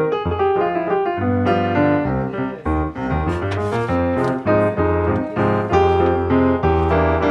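Background piano music: a run of keyboard notes over a steady bass line.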